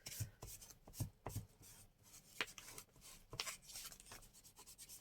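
Hands pressing and rubbing glued paper pieces down onto a journal page: faint, scattered taps and soft paper rustles.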